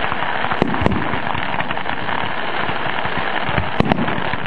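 Fireworks going off: a steady rush of noise broken by sharp bangs, two close together within the first second and two more close together near the end.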